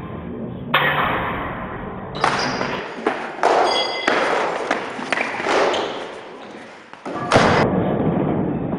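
Repeated thuds and knocks of a sparring bout: feet stamping on a gym floor and training weapons striking, with the hall's echo.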